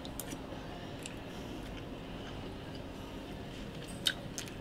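A man chewing a mouthful of gammon, faint over a low steady room hum, with a few small clicks; the sharpest click comes about four seconds in.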